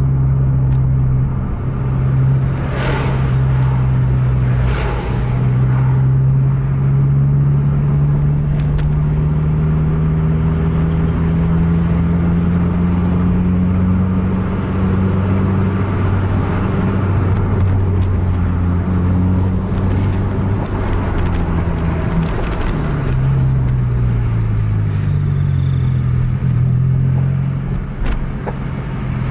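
Car engine and road noise heard from inside the cabin while following a bus. The engine hum rises slowly in pitch as the car accelerates, then drops and falls in steps between about 22 and 25 seconds, like gear changes or backing off. There are a couple of short rushing sounds about three and five seconds in.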